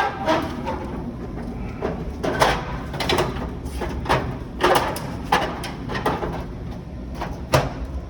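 Irregular plastic clacks, knocks and scraping as a furnace humidifier's housing and evaporator pad are handled during a pad replacement, over the steady low hum of the running furnace.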